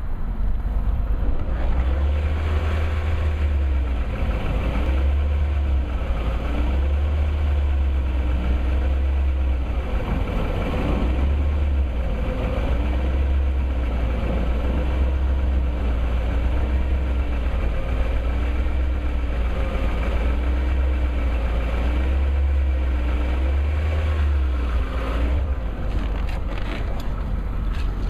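BMW 540i's 4.4-litre V8 running steadily at idle, recorded for a ticking noise. A fainter whine rises and falls every second or two, and a few clicks come near the end.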